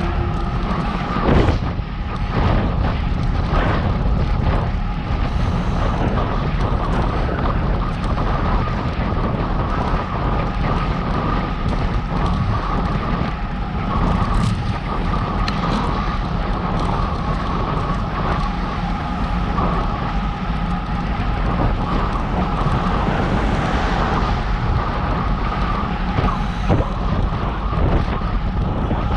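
Wind rushing over the microphone of a camera riding on a moving bicycle, with a steady low rumble and a faint steady whine underneath. A few knocks from bumps come through, one of the loudest about a second and a half in.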